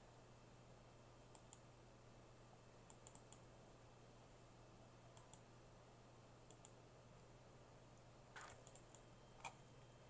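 Near silence: room tone with a low steady hum and faint scattered clicks, a couple of sharper ones near the end.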